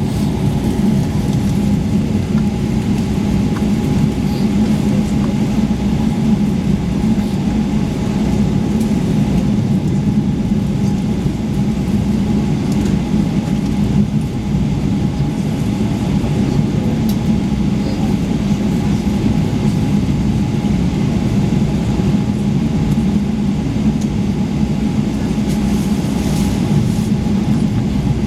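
Steady cabin noise inside a Boeing 777-300ER on the ground: its GE90 engines running at low power with the air-conditioning, a constant low drone with a faint steady whine above it.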